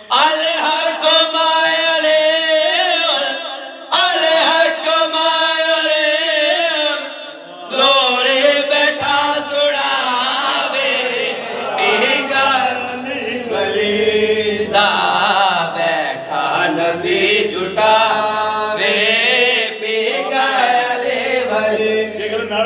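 A man chanting a devotional recitation into a microphone, in long phrases of drawn-out, held notes, with short breaks between phrases.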